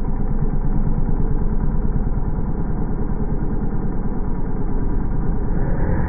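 Dirt bike engine pulling away, heard slowed down into a deep, muffled drone that pulses about seven times a second.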